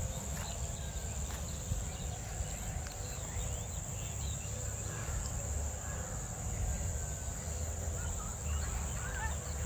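Steady high-pitched insect drone over a low rumble, with a few faint soft handling noises.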